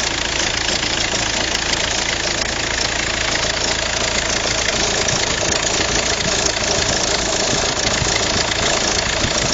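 Volkswagen Passat engine idling steadily, with an abnormal noise from the accessory drive belt running through it.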